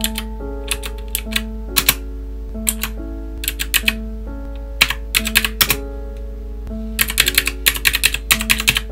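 Keystrokes on an AZIO IZO number pad with clicky Gateron Blue mechanical switches: scattered key presses, then a fast run of clicking keystrokes about seven seconds in. Background music plays under it.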